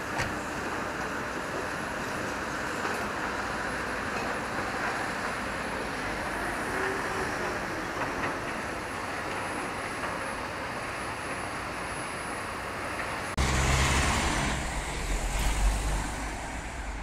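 Steady hiss of road traffic and building-site noise. About two-thirds through it cuts abruptly to louder, closer traffic with a low engine rumble as a van goes by.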